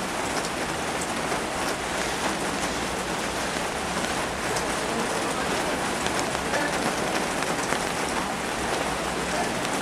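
Steady rain falling on a flooded street, with many separate drops ticking through it.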